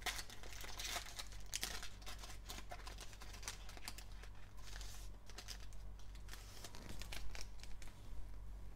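Foil trading card pack crinkling and tearing as gloved hands rip it open and pull it apart, in irregular crackles that thin out near the end.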